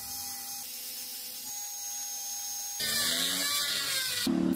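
Power tools grinding steel: first an angle grinder with a flap disc running with a steady whine, then, about three seconds in, a louder, high-pitched rotary tool with a sanding drum that rises in pitch as it spins up and sands.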